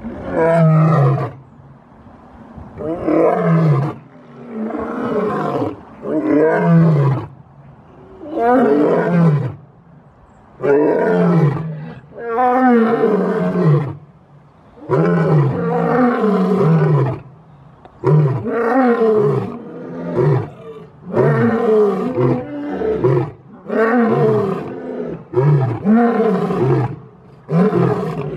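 Male lion roaring in a long bout: a run of deep calls every one to two seconds, each falling in pitch, coming shorter and quicker toward the end.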